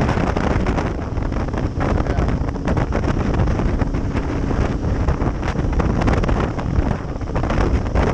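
Wind rushing over the microphone on a moving Kawasaki KLR650 dual-sport motorcycle, with its single-cylinder engine running steadily underneath.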